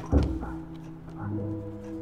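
Background music: a deep drum hit just after the start, then held low notes layered into a steady chord.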